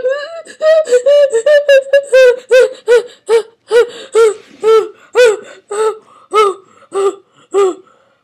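A high-pitched human voice making a long run of short cries, each rising and falling in pitch, about two a second. The first couple of seconds run together before the cries separate.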